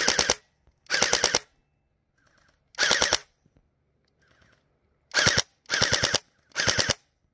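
YaGee DGR-LEI electric gel blaster firing on full auto in six short bursts of a few rapid shots each, with gaps of about one to two seconds between bursts.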